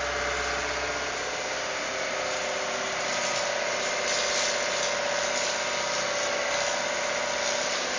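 A battery-powered electric motor running steadily at constant speed: a steady whine over a hiss.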